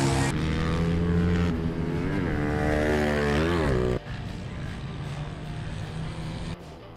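Motorcycle engine running fast on a paddock stand, revved up and back down twice. About four seconds in it gives way to a quieter, steady engine drone.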